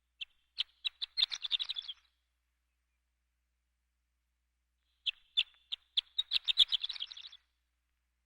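Horned lark singing: two song phrases, each opening with a few spaced, high-pitched notes that speed up into a rapid tinkling run. There is a pause of about three seconds between them.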